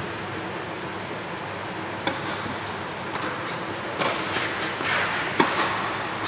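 Tennis rally: a ball struck by rackets, heard as several sharp pops from about two seconds in, the loudest a little after five seconds, with a short echo. A steady background hum runs underneath.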